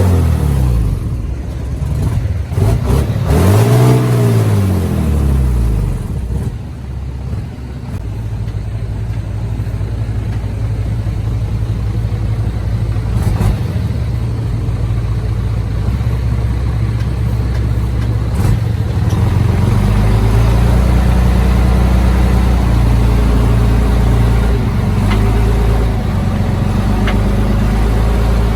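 Heavy diesel engine running steadily, with one rev up and back down about four seconds in; from around two-thirds of the way through it runs heavier and a little louder.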